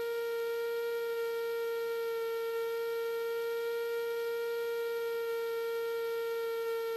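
Steady, unchanging electrical whine with overtones on the light aircraft's intercom audio feed. The plane's engine and propeller are not heard as such.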